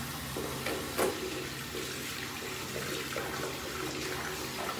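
Tap water running steadily into a bathroom sink, with irregular splashing as water is scooped onto the face in a rinse. The loudest splash comes about a second in.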